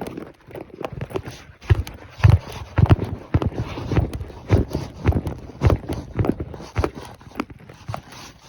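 Horse's hooves clip-clopping steadily on the ground, an uneven run of knocks about three to four a second.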